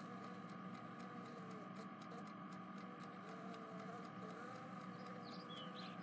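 Faint steady background hiss with scattered tiny ticks: room tone between lines of synthesized dialogue.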